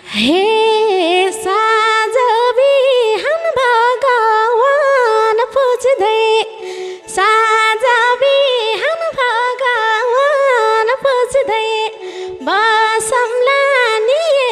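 A woman singing a Nepali Teej dohori verse into a microphone in several long phrases, with short breaks between them, her voice almost unaccompanied after the drums stop at the start.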